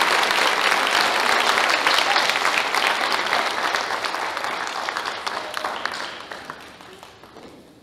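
Audience applauding, a dense clapping that fades away over the second half.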